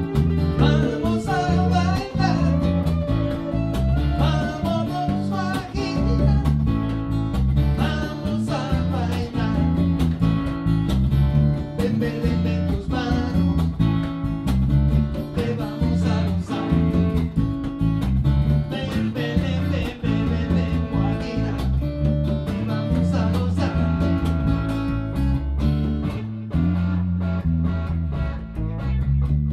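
Small acoustic band playing a guajira: acoustic and electric guitars over a hand drum, with a steady rhythm and a deep bass line.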